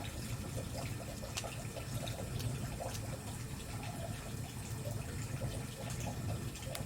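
Wood campfire burning, with irregular crackles and pops over a low, steady rumble of the flames.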